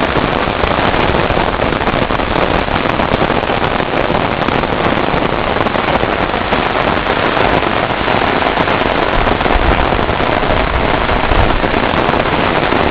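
Rain falling steadily, a dense crackling patter close to the microphone with no let-up.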